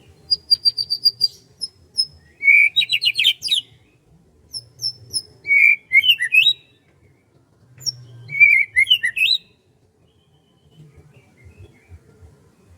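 Songbirds chirping and singing: a quick run of high, even chirps at the start, then three short song phrases about two and a half to three seconds apart, with only faint chirps near the end.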